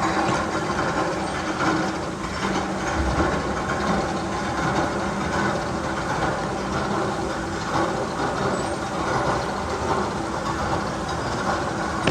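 Magnum XL 200 roller coaster train running along its track with a steady rattling rumble.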